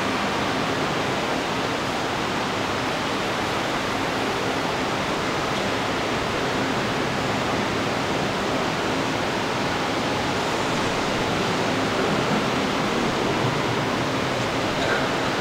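Steady, even hiss-like rushing noise that does not change.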